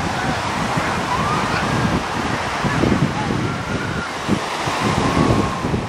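Wind buffeting the microphone over the wash of small Lake Michigan waves, with faint distant voices and shouts of a beach crowd.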